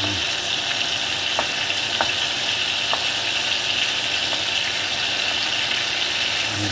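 Butter sizzling steadily as it melts and bubbles in a hot frying pan, with a spatula pushing the chunks around; a few faint ticks stand out over the hiss.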